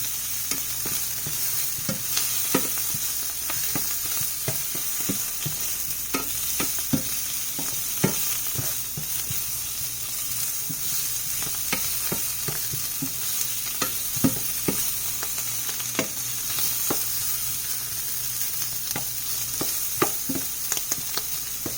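Shrimp sizzling in a hot pan while being stirred fast, the utensil clicking and scraping against the pan at irregular moments over a steady frying hiss.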